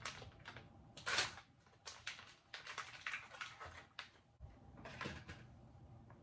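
Crinkling and rustling of an MRE tortilla pouch being handled as a tortilla is pulled out: a run of short crackles, the loudest about a second in.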